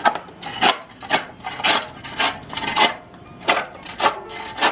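Shovel digging into packed gravel: the blade scrapes and crunches into the stones with each stroke, about two strokes a second.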